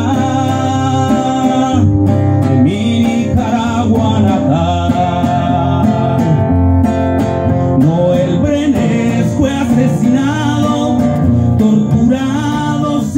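Acoustic guitar strummed and picked in a live folk song, with a singing voice over it at times.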